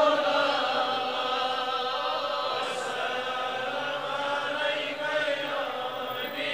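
Voices chanting a Kashmiri durood, salutations on the Prophet, in long held melodic notes.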